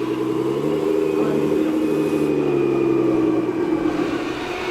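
Radio-controlled scale excavator running: a steady motor hum with a thin high whine, easing slightly in pitch and level about three-quarters of the way through.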